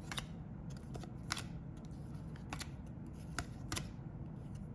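Trading cards being handled and flipped through one at a time, with about five sharp clicks as the cards snap against each other.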